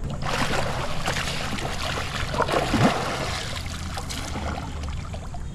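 River water sloshing and churning against a camera held at the surface, a steady rushing noise with small splashes.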